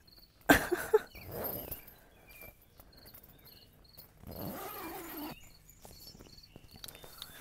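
Nylon tent fabric rustling and a tent door zip being worked by hand, in short bursts, over steady high chirping in the background.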